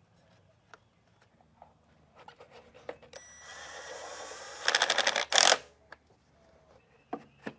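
Cordless drill-driver running a bolt down: the motor whines steadily for about a second and a half, then a fast rattle of clicks and a short, loudest burst as the bolt seats.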